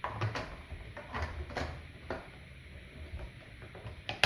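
Plastic housing and front face panel of a ResMed AirSense 10 CPAP machine knocking and clicking as the panel is handled and fitted on. A scatter of light taps, with a sharper click near the end.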